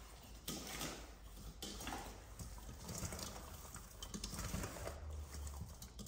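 Dry, crumbly yellow coating sprinkled from a wooden bowl and spread by hand over a metal baking tray, making soft, irregular pattering and rustling strokes.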